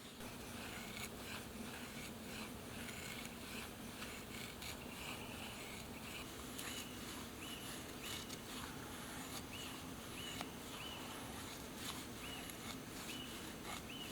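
A freshly sharpened convex-edged knife carving feather sticks: repeated short shaving strokes of the blade along a wooden stick, faint, with light clicks.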